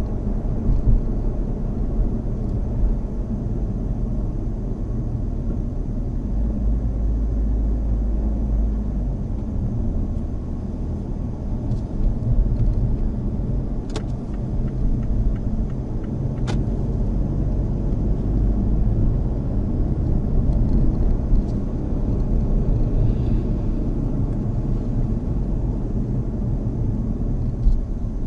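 Mazda Axela Sport under way, with steady low engine and road rumble. Two brief clicks come a couple of seconds apart around halfway through.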